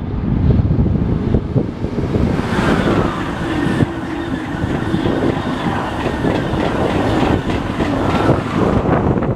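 Eurostar Class 373 high-speed train passing close at speed: a steady rush of wheels on rail and air along the coaches. It grows brighter about two seconds in as the train draws level, with wind buffeting the microphone underneath.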